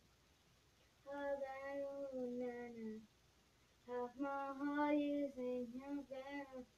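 A young girl singing unaccompanied: two phrases of held, gliding notes, the first starting about a second in, the second about four seconds in.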